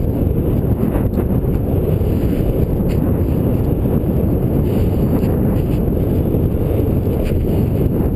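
Strong wind buffeting the camera's microphone: a loud, steady low rumble.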